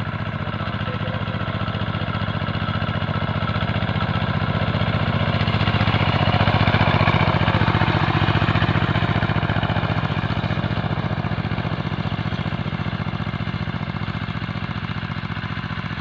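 Engine of a two-wheel hand tractor running steadily with a rapid, even chugging as it pulls a harrow across the field. It grows louder as the tractor passes close about halfway through, then fades.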